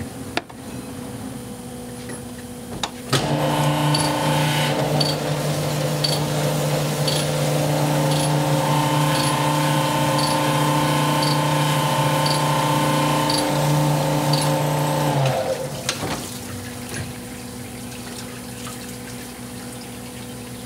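Sunnen CV-616 cylinder hone running a final pass in an engine block's cylinder bore to take out the last couple of tenths of a thousandth for piston clearance. The machine starts about three seconds in, runs as a steady multi-tone hum with a light tick about once a second, and stops about fifteen seconds in. A lower steady machine hum is heard before and after.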